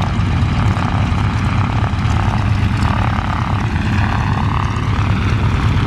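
Radial piston engines of vintage biplanes running steadily, a loud, even low throb with a fast pulse.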